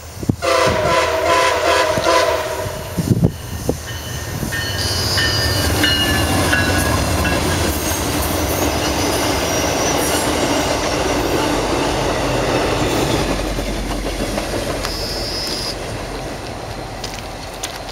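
A MARC diesel commuter train sounds its multi-note air horn for about three seconds as it approaches. The train then passes close by, its engine and wheels rumbling on the rails, with high wheel squeal now and then, and it fades a little near the end.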